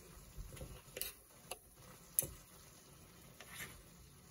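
A knife and fork clicking against a skillet as chicken is cut up in the pan: a few sharp, irregular ticks, the loudest about two seconds in.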